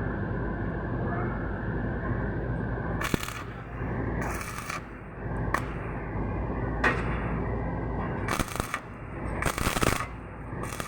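Electric arc welding: short bursts of sharp crackling from the arc, half a dozen times, over a steady low machine hum.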